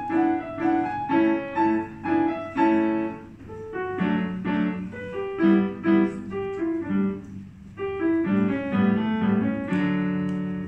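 Yamaha grand piano played solo: quick repeated chords and short running phrases, ending on a held final chord near the end.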